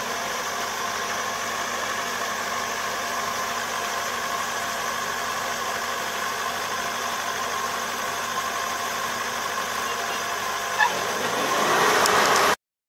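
Combine harvester engine running steadily, with a single click about eleven seconds in; the sound grows louder over the last second and then cuts off suddenly.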